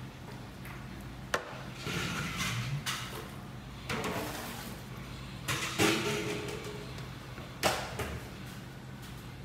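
Workshop sounds: a steady low hum under several short clattering bursts. There are sharp knocks about a second and a half in and again near the end.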